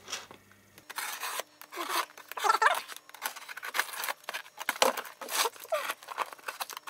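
Plastic shrink-wrap on a cardboard box being slit with a hand-held blade and pulled off: irregular scratching, rustling and tearing.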